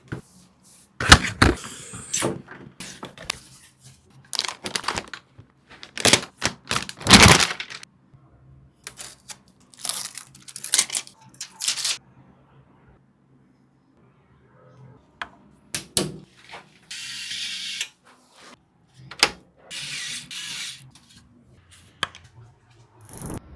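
Hands handling a graphics card and its packaging: a string of sharp clicks, knocks and thunks, with a few short rustling, hissing stretches.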